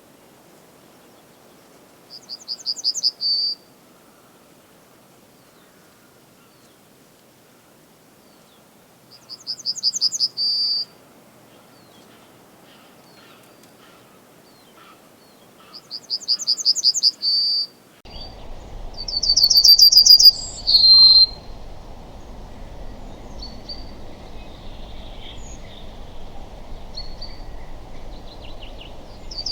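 Male Eurasian yellowhammer singing its song four times: each phrase is a quick run of repeated high notes ending in a longer held note, the "little bit of bread and no cheese" pattern. The first three phrases come about seven seconds apart. The last follows closely over a steady low background noise.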